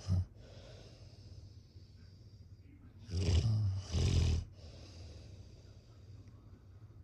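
Snoring: the tail of one snore right at the start, then one loud snore in two pulls about three seconds in, lasting about a second and a half, with quieter hissing breaths between snores.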